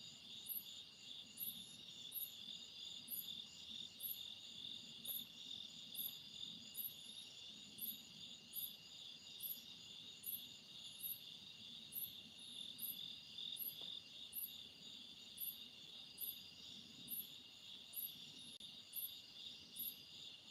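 Night chorus of crickets and other insects: a steady pulsing trill, over which one insect repeats a short, high chirp about one and a half times a second.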